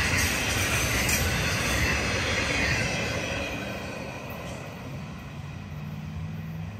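Freight train cars carrying intermodal trailers rolling past on steel rails, with a steady clatter of wheels on track. The noise dies away about three to four seconds in as the end of the train goes by.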